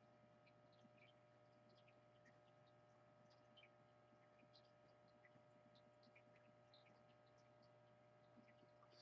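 Near silence: a faint steady electrical hum, with a few tiny clicks.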